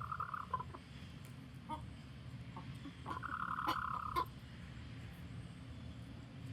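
Chicken giving a warning call to the flock: a high, drawn-out call at the start, two short notes, then a second, longer held call lasting about a second, three to four seconds in.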